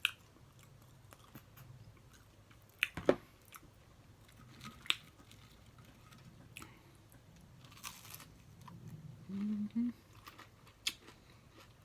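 A person chewing and biting into fried catfish nuggets close to the microphone, with scattered crunches and mouth clicks, the loudest about three seconds in.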